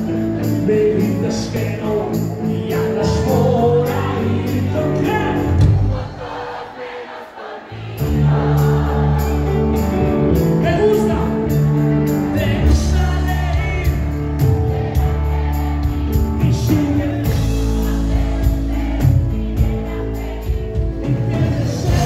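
Live band playing a Mexican pop song with a singer over a steady beat. The music drops back to near-nothing about six seconds in and the full band comes back in two seconds later.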